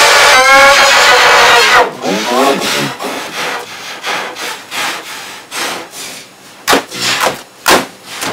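A loud, distorted yell rising in pitch, then a short wavering cry. After that come rough scraping and rubbing noises and a few sharp knocks near the end.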